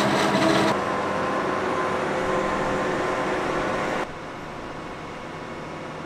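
Farm machinery running during maize chopping: the steady drone of tractor and forage harvester engines with a hum, changing abruptly about a second in and dropping to a quieter level about four seconds in.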